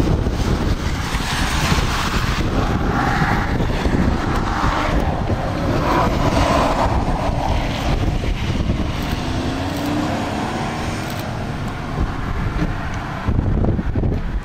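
Gusty wind buffeting the microphone, with cars driving past on the road.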